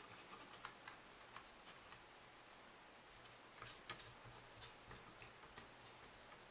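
Faint, irregular small ticks and scrapes of a cleaning tool scrubbing green corrosion off a circuit board with isopropyl alcohol, with a brief flurry of them about halfway through.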